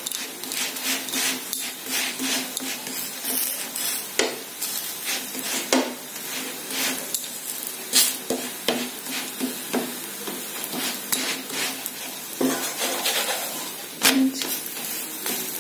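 Paratha sizzling in ghee on a flat tawa while a wooden spatula presses, scrapes and knocks against it and the pan, many short irregular clacks over a steady frying hiss.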